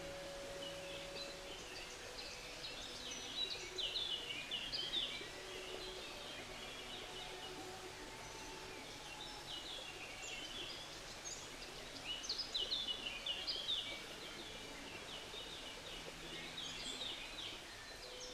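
Songbirds chirping in quick clusters of short notes, busiest about three to five seconds in and again around twelve to fourteen seconds, over a steady rush of flowing brook water.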